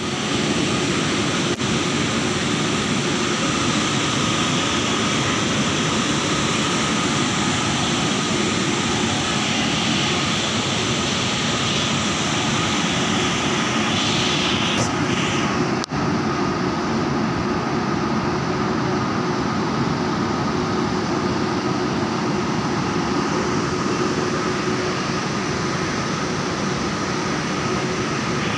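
Steady hum and whine of a WAG-9 electric locomotive's cooling blowers and machinery, with steady tones running through it and a short hiss about halfway through.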